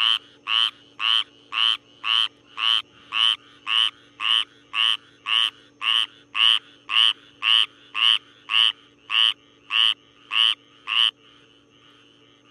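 A frog croaking: a run of about twenty short croaks, evenly spaced at about two a second, that stops about eleven seconds in. A faint steady low hum lies underneath.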